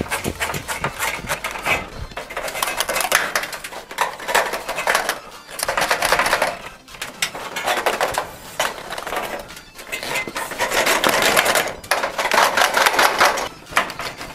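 Cable puller (fish tape) being pushed and worked through rigid PVC electrical conduit, scraping and rattling in repeated rasping bursts of one to two seconds.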